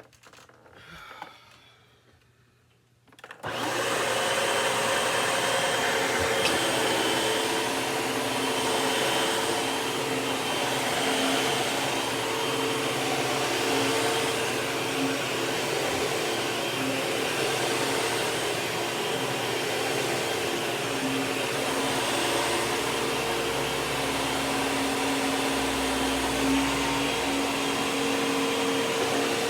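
Hoover WindTunnel 2 upright vacuum cleaner switched on about three and a half seconds in, its motor coming up quickly and then running steadily with a constant whine.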